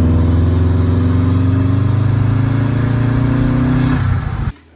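Motor vehicle engine running under acceleration, its pitch rising slowly, then cut off suddenly near the end.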